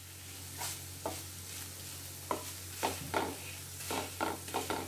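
Crumbled khoya (mawa) sizzling as it roasts in a nonstick frying pan. A wooden spatula stirs it, making irregular sharp scrapes and taps against the pan that come more often in the second half. A low steady hum runs underneath.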